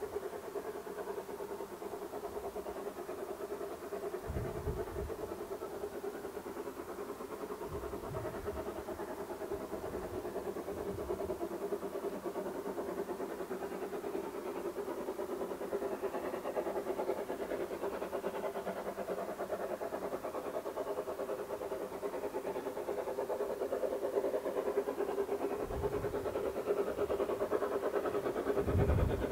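A steady mechanical hum from a distant engine, growing a little louder over the last few seconds, with short deep rumbles of wind on the microphone now and then.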